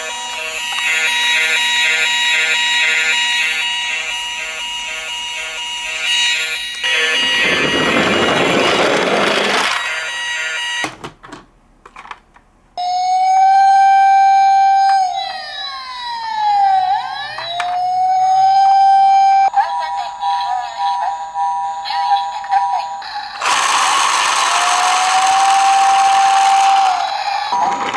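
A run of toy emergency-vehicle siren sounds: repeating steady tones, then a siren tone that glides down and back up near the middle. Two stretches of rushing noise break in, and there is a short near-silent gap before the glide.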